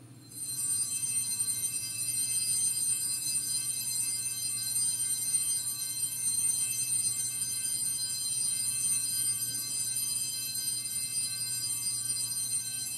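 Small altar bells (sanctus bells) ringing continuously, a steady shimmer of high bell tones that starts just after the consecration words and signals the elevation of the chalice.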